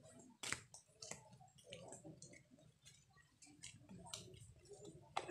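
Faint, irregular clicks and taps, a few each second, over a quiet background.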